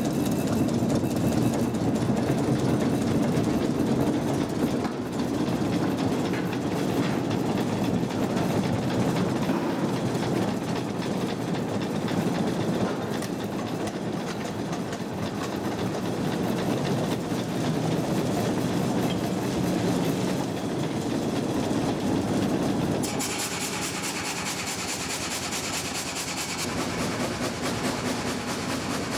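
Old vertical frame saw (gang saw) running with its blades cutting through a log, a steady mechanical clatter. About 23 seconds in, it gives way to a quieter, steady hiss.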